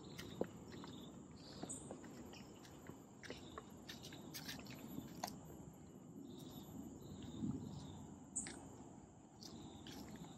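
Faint tropical forest ambience: a steady high-pitched insect drone, with short bird chirps every few seconds and soft crunching footsteps on a path strewn with dry leaves.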